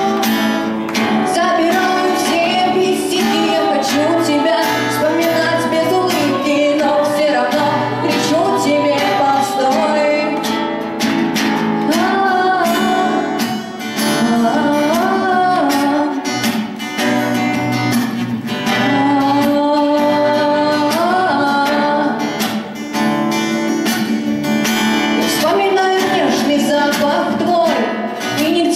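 A woman singing a pop song into a microphone over a strummed acoustic guitar, performed live.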